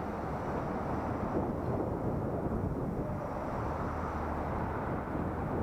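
Steady rush of wind and road noise on a helmet-mounted action camera's microphone during a ride.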